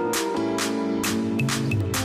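Background music: an electronic beat with a drum hit about every half second over held synth chords.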